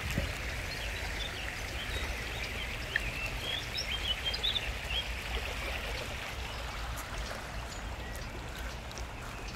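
Shallow stream running over stones, a steady rushing and babbling of water. Small birds chirp briefly a few seconds in.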